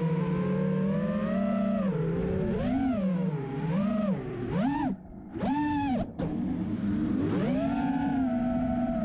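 FPV racing quadcopter's Stout V3 brushless motors on a 5S battery whining, the pitch swinging up and down with throttle. About five seconds in the throttle is chopped and the motors go nearly quiet for a moment, then punch back up to a high whine, with a second brief chop just after.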